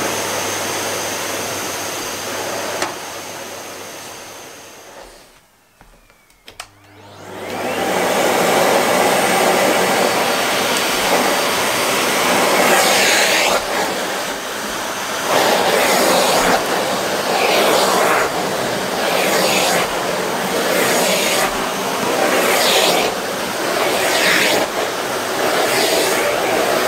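Vacuum cleaner running, then fading out to near silence about five seconds in. About seven seconds in, a Miele bagged cylinder vacuum starts up and runs loudly on carpet. From about halfway, its sound surges every second or two as the floor head is pushed back and forth.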